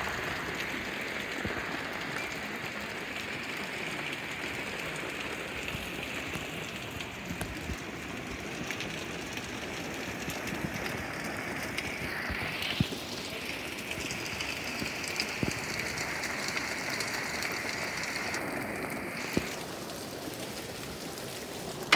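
Heavy rain falling steadily on a deck and yard, a continuous even hiss.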